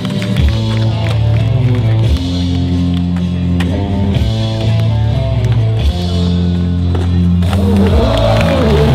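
Background music: a rock-style track with a steady bass line and held notes that change every second or so. It grows fuller about seven and a half seconds in.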